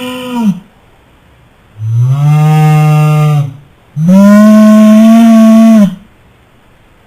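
Three long mooing calls like a cow's. The first ends about half a second in; the other two each last close to two seconds. Each swoops up at the start, holds a steady pitch and drops away at the end.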